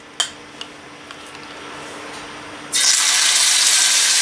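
A few light clicks and some scraping, then, about two-thirds of the way in, minced garlic dropped into hot olive oil in a nonstick skillet starts sizzling with a sudden loud hiss that keeps going.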